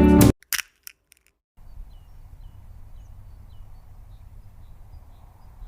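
Acoustic guitar background music cuts off suddenly, followed by a click and a second of silence. Then a low, steady outdoor ambience with faint, short, high chirps repeating about twice a second, like a small bird calling.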